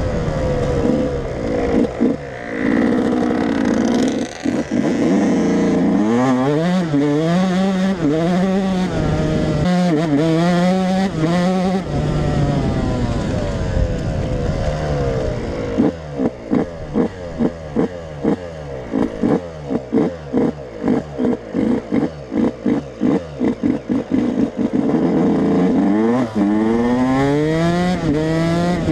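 Yamaha YZ125 two-stroke single-cylinder dirt bike engine under way, revving up and falling back again and again as it pulls through the gears. A choppy stretch of rapid on-off pulses comes in the middle, and the engine revs up again near the end.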